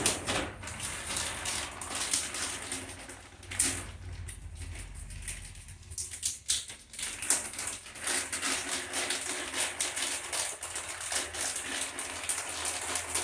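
Irregular clicks, taps and rattles of electrical wires and small hand tools being handled up close.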